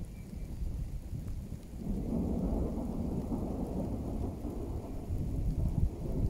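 Thunder from a thunderstorm: a low rumble that swells about two seconds in and goes on for several seconds.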